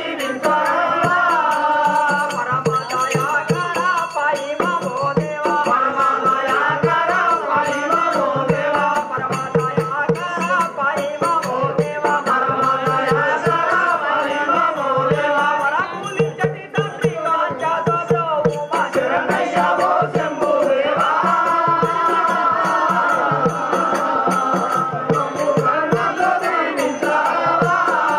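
Live folk drama music: a chant-like melody that wanders and holds long notes, over a steady rattling percussion beat.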